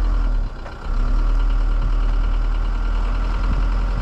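Vehicle engine running with a steady low rumble, dipping briefly about half a second in.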